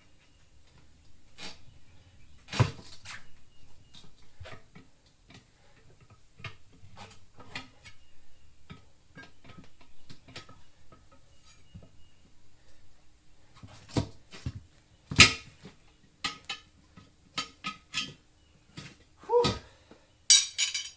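Irregular metal clinks and knocks of hand tools working a tire bead onto a steel rim, the loudest knocks about two and a half and fifteen seconds in, with a quick cluster of sharper clanks near the end.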